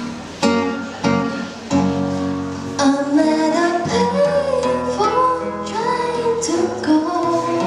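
A guitar strikes a few chords, then from about three seconds in a female voice sings a melody over the guitar accompaniment.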